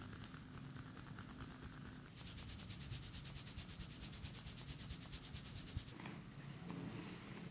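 Hands rubbing quickly and evenly over skin in a massage. The strokes grow louder and brighter about two seconds in, then stop suddenly near the end, leaving a few faint clicks.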